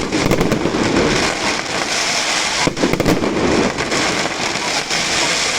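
Fireworks display: a dense, continuous crackle of many rapid pops and bursts.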